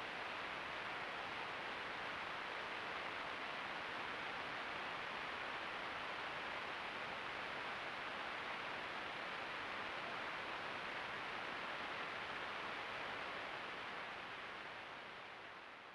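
Steady hiss from a BOG Blood Moon trail camera's microphone, its own background noise with no distinct animal sounds, fading out near the end.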